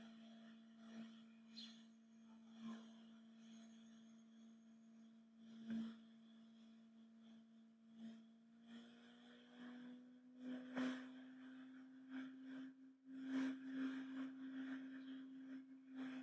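Near silence: a faint steady electrical hum with a few soft mouse clicks scattered through.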